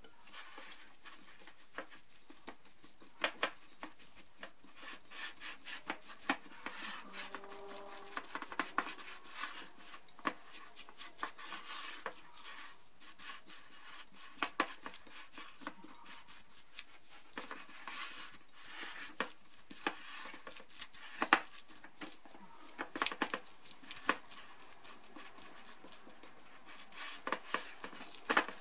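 Silicone spatula stirring sticky flaked coconut and condensed milk in a porcelain bowl: irregular clicks and taps as the spatula knocks and scrapes the bowl, over soft mixing noise.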